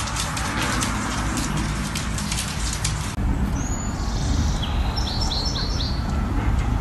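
Rapid clicking, then an abrupt change to outdoor ambience with a low rumble and a bird chirping a quick series of about five notes.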